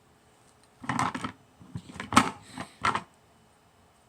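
Small plastic toy-kitchen pieces clattering and knocking together as they are handled, in three quick bursts about a second apart.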